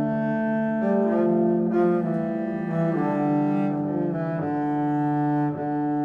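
Background music of slow, held chords, the notes changing every second or so.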